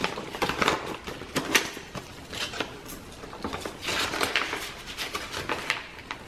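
Paper rustling and crinkling as a sheet of paper is tucked into a pocket and the pages of a handmade paper journal are turned, with small taps and rubs. It comes in short bursts, the busiest about a second in and again about four seconds in.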